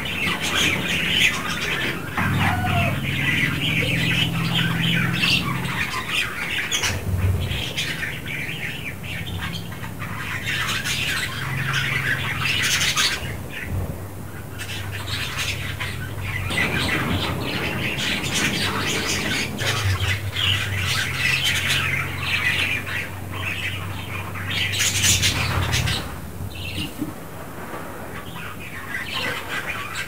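Budgerigars chattering: a continuous stream of warbling, chirps and squawks, over a low hum.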